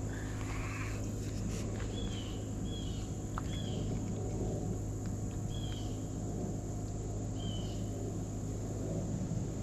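A bird's short, high chirps, about six of them spread a second or so apart, over a steady high insect drone and a low steady hum.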